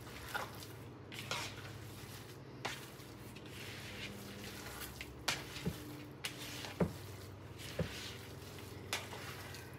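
Hands squishing and kneading raw meatloaf mixture of ground meat, oatmeal and eggs in a bowl: soft wet squelches with scattered sharp smacks, over a steady low hum.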